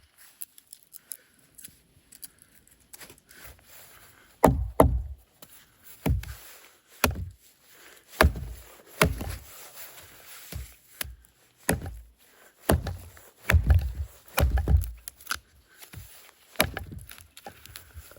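Firewood being chopped: after a few seconds of faint handling noises, about a dozen heavy strikes on wood land roughly a second apart, each a dull thud.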